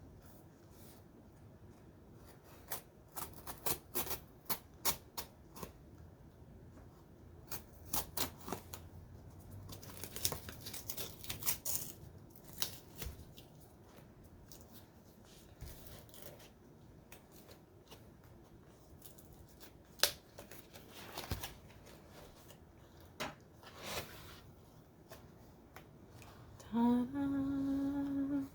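Crinkling and clicking of packaging being opened and handled, in several bursts of quick snips and rustles. Near the end comes a short held voiced tone that rises briefly and then stays level.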